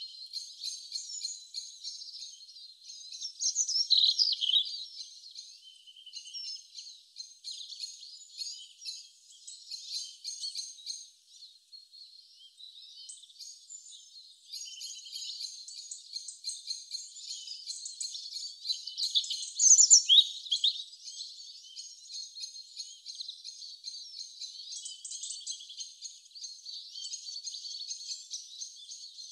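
Birds chirping and singing in a dense chorus of short calls and trills, with two louder downward-sweeping calls about four seconds in and about twenty seconds in.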